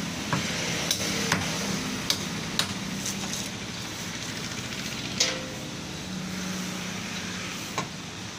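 A cleaver chopping chicken on a wooden stump block: sharp chopping strikes, five in quick succession over the first three seconds, then a louder one about five seconds in and another near the end. A steady background hum runs under them.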